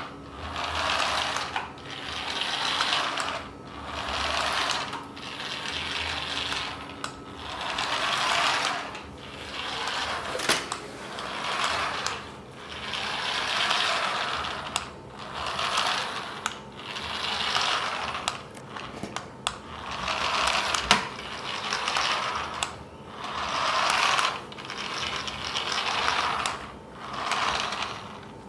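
Toy remote-control car's small electric motor and plastic gears whirring in repeated bursts, about one every two seconds, with a few sharp clicks between bursts.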